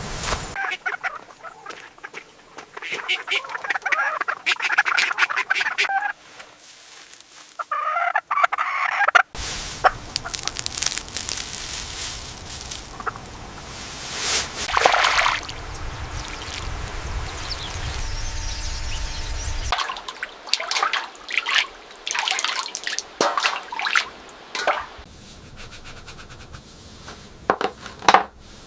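Chickens and ducks calling in bursts, several birds at once, with scattered knocks and clatters between the calls.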